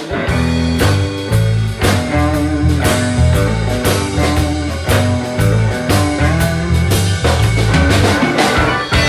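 Live rock band playing an instrumental passage with no singing: electric guitar over electric bass, drum kit and keyboard, with a steady drum beat. The full band comes in together right at the start.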